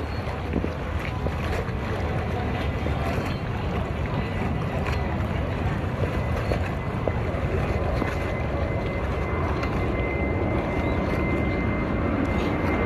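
Jet ski engine running steadily at low speed, with wind buffeting the microphone.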